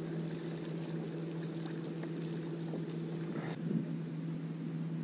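Steady, even hum of a small boat's engine running at constant speed.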